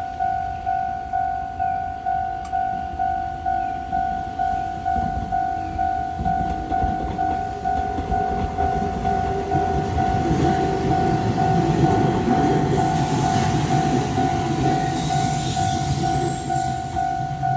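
A Japanese railroad crossing's warning bell rings "kan-kan" steadily, a couple of strikes a second. The train The Rail Kitchen Chikugo comes up and passes through the crossing, its rumble and wheel-on-rail noise growing from about a third of the way in and loudest near the end.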